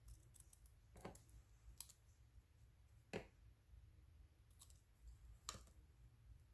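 Faint, scattered clicks and taps of collage materials being handled on a desk, about five in all, with the sharpest about three seconds in, over a low steady hum.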